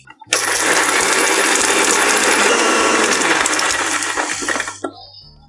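Electric mixer grinder (mixie) running, with roasted sesame seeds, lentils, dried and green chillies and salt rattling in its steel jar as they are dry-ground. It starts about a third of a second in, runs steadily, and is switched off near the end, winding down briefly.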